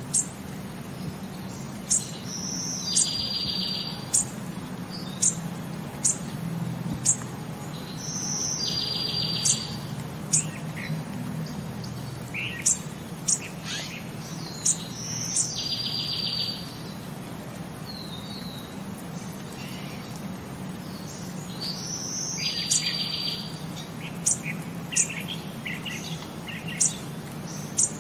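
Small birds chirping: short, sharp high chirps scattered throughout, with a buzzy trill that repeats about every six to seven seconds, over a low steady hum.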